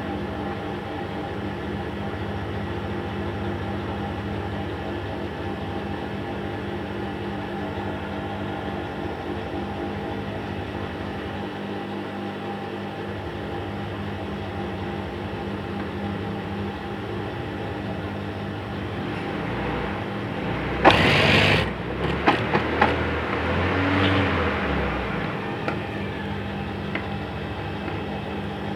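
Typical industrial sewing machine motor running with a steady hum. About 21 seconds in there is a short loud burst, then a few sharp clicks over the next few seconds.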